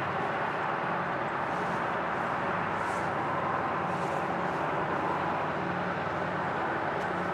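Freight train rolling past: a steady, unbroken rumble and rolling noise.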